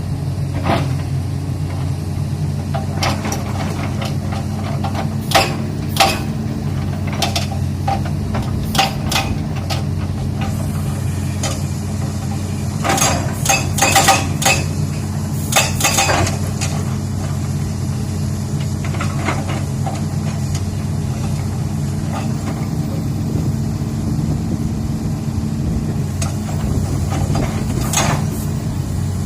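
Excavator's diesel engine running steadily, with irregular sharp knocks and clanks from the machine working on rock, a quick cluster of them about halfway through.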